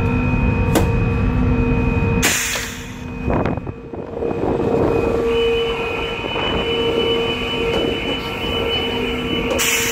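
Steady hum of a ferry's machinery on the car deck, with a low rumble and a few held tones. About two seconds in a hissing rush cuts across it and the low rumble drops away, and another rush comes near the end.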